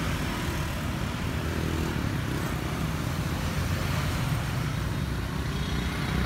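Steady background road traffic noise, a low, even rumble of motor vehicles with no distinct single event.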